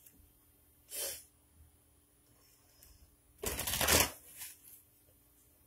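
Oracle cards being shuffled by hand: a quick, loud riffle of the deck lasting under a second, about three and a half seconds in, followed by a couple of softer card flicks. A brief soft hiss comes about a second in.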